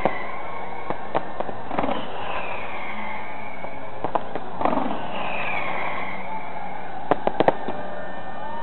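Fireworks show bursting overhead: scattered sharp bangs and crackles, with a quick run of several bangs about seven seconds in. Whistling tones that fall in pitch recur about every three seconds over a steady hiss.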